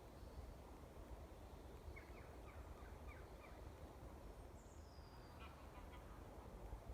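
Near silence with a low background rumble and faint bird calls: a quick run of about six short chirps starting about two seconds in, a thin higher call, and a few more chirps near the end.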